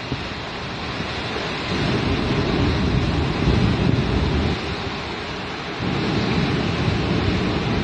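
Wind buffeting the microphone, a deep gusting rumble that swells and eases, over a steady hiss of sea surf.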